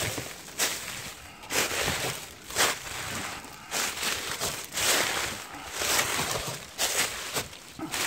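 Footsteps crunching through a thick layer of dry fallen leaves, a loud rustling crunch about every second, uneven in spacing.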